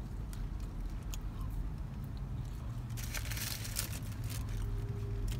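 Low steady hum inside a car, with quiet eating noises and a short crackling rustle about three seconds in.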